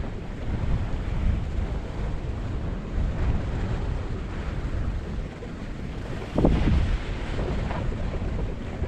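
Wind buffeting the camera's microphone, a steady, heavy rumble, with a brief louder burst about six and a half seconds in.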